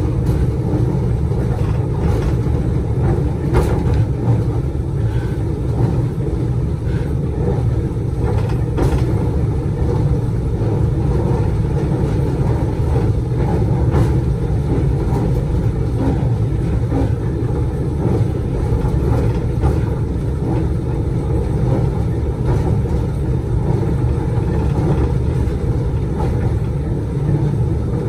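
Diesel locomotive running under way, heard from on board: a steady low engine and running rumble with a few sharp clicks from the wheels over the rails.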